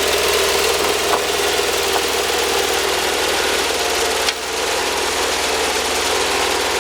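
Wood-Mizer band sawmill running steadily on its engine, with a brief dip in level about four seconds in and a couple of light clicks.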